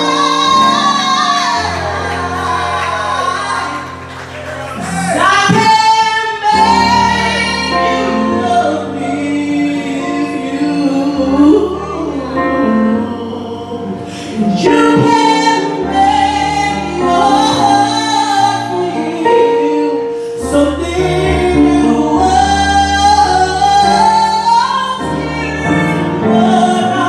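A woman singing an R&B ballad live into a microphone over a backing band, with long held notes that bend and break into runs over steady bass notes.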